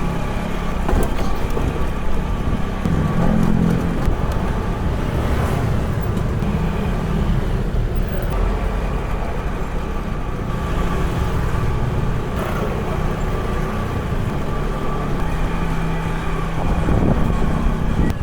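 Road traffic: a vehicle engine running steadily amid continuous street noise.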